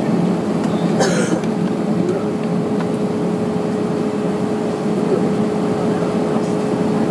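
Steady cabin drone inside an Airbus A321-214 moving on the ground, with a steady whine that comes in about a second in and holds, and a brief hiss at the same moment.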